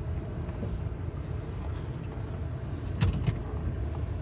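Low, steady rumble of a car driving slowly, heard from inside the cabin, with two short knocks close together about three seconds in.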